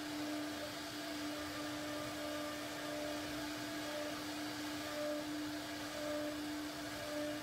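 CNC router spindle running steadily as it carves a relief pattern into a wooden panel. It gives a constant pitched hum over a hiss, with short higher tones coming and going.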